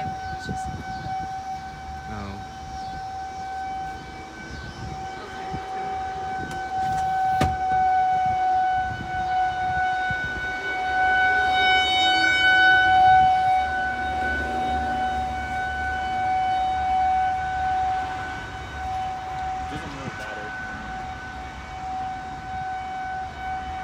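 Outdoor tornado warning siren sounding a single steady tone that holds its pitch, swelling louder and then softer, loudest about halfway through.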